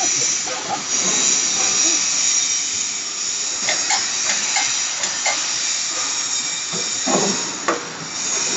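Downspout elbow forming machine running with a steady hiss, with several short knocks and clacks of the machine and sheet metal in the middle and near the end.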